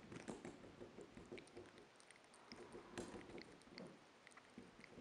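Porcupine gnawing and chewing a small pumpkin: faint, irregular crunchy clicks, with one sharper crunch about three seconds in.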